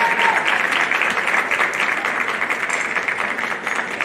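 Audience applause, a dense patter of many hands clapping that gradually dies down. A held tone stops just after the start.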